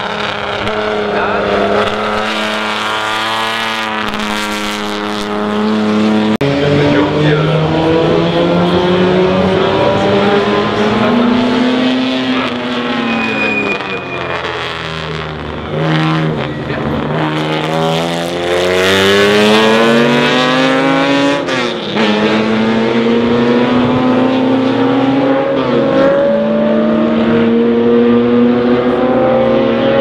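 Historic front-engined sports-racing cars at full throttle. Their engine notes climb in pitch in several runs and break at each gear change, and in the middle stretch the pitch falls away and then rises again as a car slows and pulls away.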